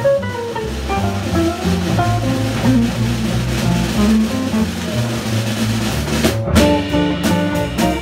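Live jazz quartet of saxophone, guitar, bass and drums playing, with a walking bass line under guitar and melody notes. About six and a half seconds in, a cluster of drum hits comes in.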